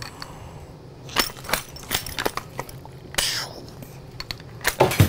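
Prop guns being handled: scattered sharp clicks and knocks, irregularly spaced, with a louder knock near the end.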